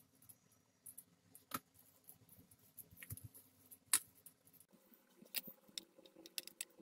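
Hands mashing boiled potatoes in a plastic bowl: faint squishing with a few scattered sharp clicks, the loudest about a second and a half in and again about four seconds in.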